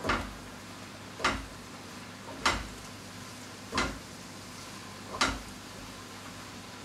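Single water drops falling in a wet vivarium, five in a row about one every second and a quarter, each a short sharp drip over a steady faint hiss.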